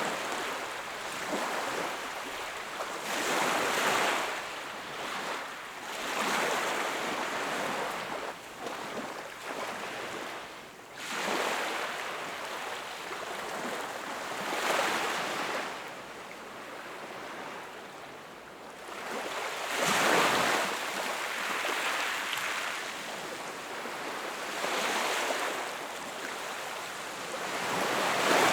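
Ocean waves breaking and washing on a shore, swelling and falling back every few seconds.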